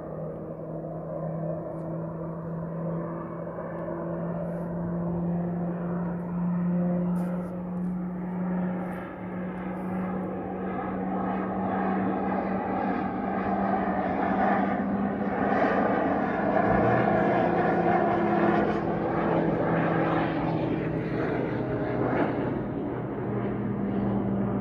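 Fixed-wing aircraft flying over, a steady engine drone that grows gradually louder as it comes nearer.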